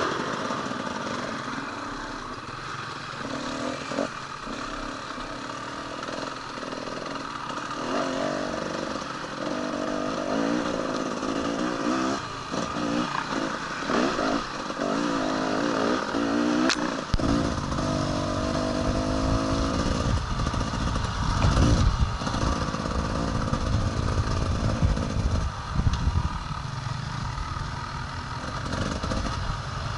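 Enduro motorcycle engine running off-road, its revs rising and falling again and again. A sharp click comes just past halfway, and from then on a heavy low rumble runs under the engine to the end.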